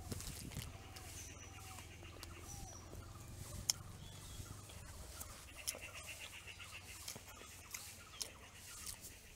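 Faint outdoor ambience with distant birds calling in quick chirping trills, twice, and a few soft clicks.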